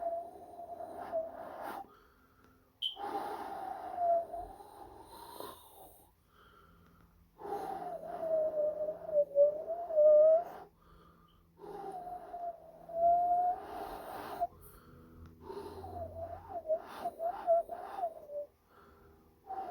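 A breathy, whistle-like tone whose pitch wavers around one note, sounding in about five long strokes of two to three seconds each with short gaps between them.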